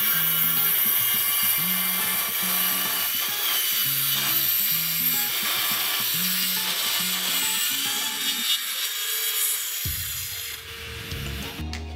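Table saw ripping a turned pine rod lengthwise, a steady high cutting noise that stops near the end as the cut finishes.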